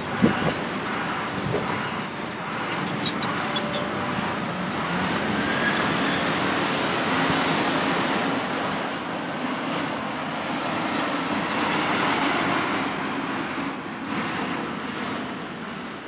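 Hitachi ZX870 excavator's diesel engine and hydraulics working steadily as it swings a loaded bucket over to a dump truck and tips the soil and rock into the body around the middle. There is a sharp knock just after the start and scattered clatter over the first few seconds.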